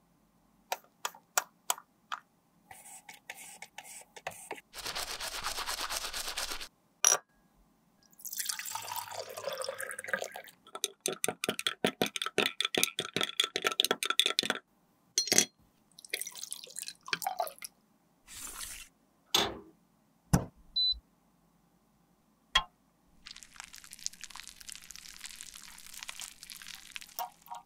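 A series of close-up handling sounds from cosmetics and glassware: scattered clicks and taps, stretches of liquid pouring and dripping, and a run of quick strokes in the middle. A steady hiss comes near the end.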